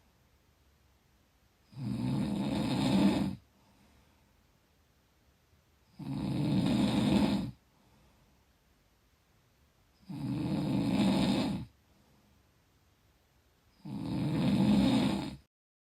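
Snoring in slow, regular breaths: four snores of about a second and a half each, roughly every four seconds. The sound cuts off abruptly near the end.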